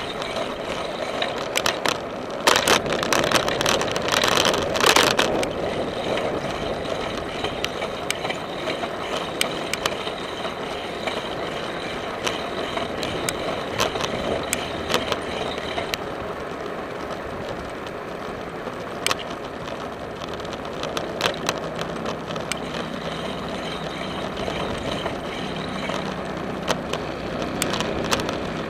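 Bicycle riding along a paved trail: steady tyre and road noise, with frequent clicks and rattles from the bike and a dense run of rattling a few seconds in.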